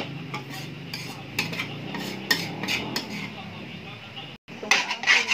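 Metal spatula scraping and clinking against an aluminium wok as fried noodles with bean sprouts are tossed and stirred, in irregular strokes. The sound drops out briefly just past four seconds, then comes back with a louder flurry of scrapes.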